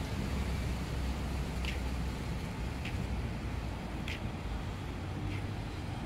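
Steady low outdoor rumble of wind on the microphone and distant road traffic, with a short high chirp repeating about once a second.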